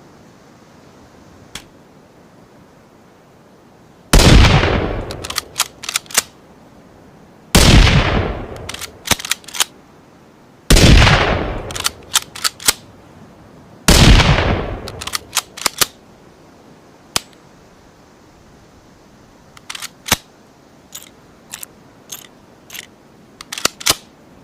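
Bolt-action rifle shot sound effect, a hybrid of Ruger American centerfire and rimfire rifle shots: four shots about three seconds apart, each with a tail that dies away over about a second and is followed by a quick run of sharp metallic clicks as the bolt is worked. Near the end come scattered lighter clicks of rifle handling.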